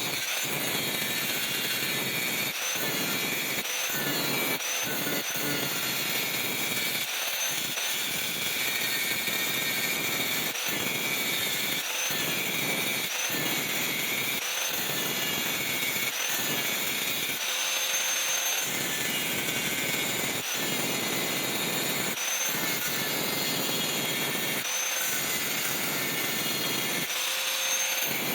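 An electric grinder running steadily on steel with a high whine, interrupted by many brief gaps.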